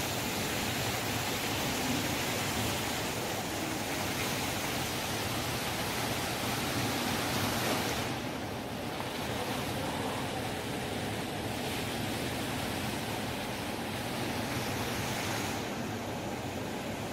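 Steady, even background noise of a large indoor shopping-mall atrium, with no single sound standing out; the hiss thins slightly about eight seconds in.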